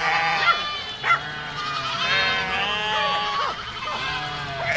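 Herd of goats bleating, many overlapping calls of different pitches at once, with short sharp cries breaking in about half a second and a second in.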